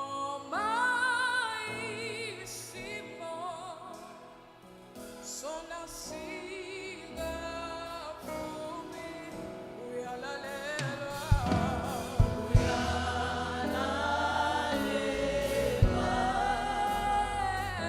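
Gospel song with sung voices, the notes held with vibrato; about eleven seconds in a bass line and drum beats come in and the music grows louder.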